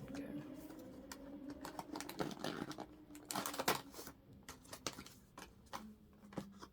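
Fingers and nails picking, tapping and scratching at a small cardboard blind box to pry it open, in scattered irregular clicks; the box is hard to open because it has no proper tear strip.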